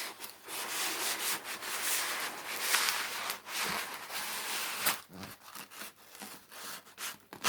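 Hands rubbing and sliding over a rolled diamond painting canvas, a scratchy rustling that thins out after about five seconds.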